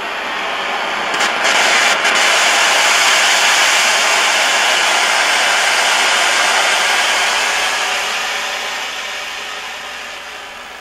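Aero acetylene soldering torch burning with a steady, loud hiss while it heats up. The hiss swells over the first few seconds and fades toward the end, with a couple of brief clicks about one and two seconds in.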